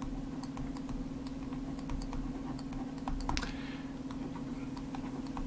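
Irregular light clicks and taps of a stylus on a tablet as letters are handwritten, over a steady low hum.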